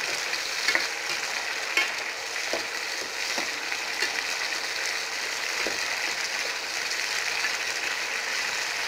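Crushed turkey berries sizzling steadily in plenty of hot sesame oil in a steel kadai, being fried until soft and turning white. A metal spoon stirring them clicks against the pan a few times.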